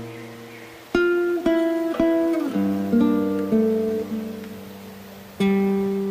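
Acoustic guitar music: single plucked notes and chords about every half second to a second, each ringing out and fading, with one note sliding down in pitch about halfway through.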